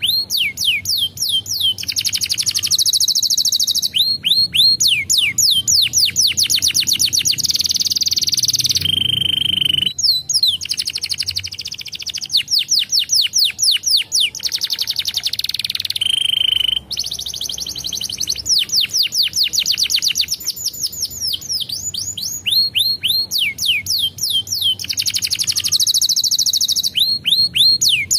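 Domestic canary singing a long, unbroken song of fast repeated sweeping trills, with two short steady whistled notes midway.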